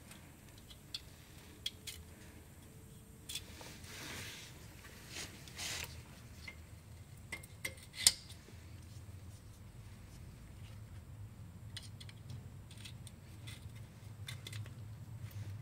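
Scattered light metal clinks and taps of tools and parts being handled, with one sharp clink about eight seconds in, over a faint low hum that grows toward the end.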